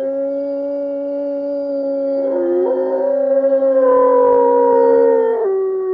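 A recording of gray wolves howling in chorus, played through a smart display's speaker: several long, held howls overlap, with another voice joining about two seconds in and a higher, slowly falling howl near four seconds. Near the end the chorus drops away, leaving one lower howl.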